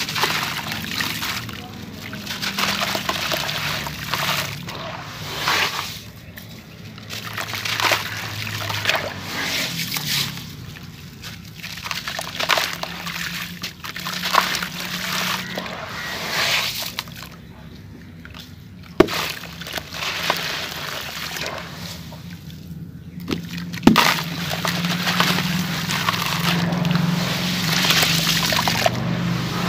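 Dry sand-cement lumps crumbled by hand into a tub of water: gritty crumbling, with sloshing and trickling as the pieces and water fall back, in repeated surges every second or two. Two sharp knocks about five seconds apart in the second half.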